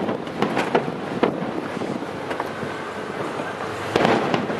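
Aerial fireworks going off: several sharp bangs in the first second or so, then a louder, longer burst near the end, over wind noise on the microphone.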